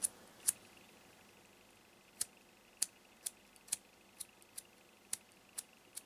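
A metal Clipper petrol lighter's flint wheel is struck over and over, giving a string of sharp clicks about twice a second, and it fails to light. The wadding has not yet soaked up enough petrol.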